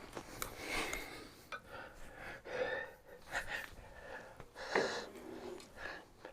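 Faint, irregular breathing and sniffs close to the microphone, with a few small clicks.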